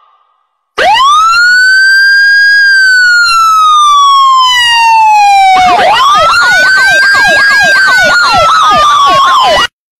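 Electronic siren. After a moment of silence it sounds one long wail that rises and slowly falls, then switches to a fast yelp of about three sweeps a second over a second wail, and it cuts off abruptly just before the end.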